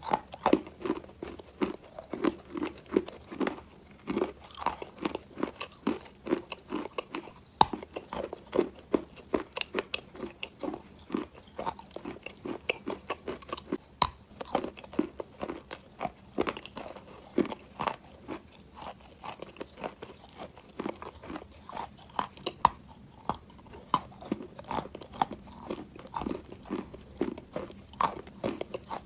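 Close-up crunching and chewing of wet chalk soaked in clay water: a steady run of sharp, gritty crunches with rhythmic chewing strokes, a few a second.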